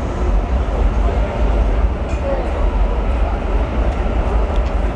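Steady low rumble of a Sydney light-rail tram (Alstom Citadis) running past at street level, with voices of passers-by.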